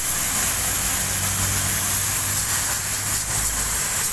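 Water jet from a hose spray nozzle hitting the fins of a car air-conditioning evaporator core, a steady hiss, rinsing cleaning chemical off the dirty coil. A low steady hum runs underneath.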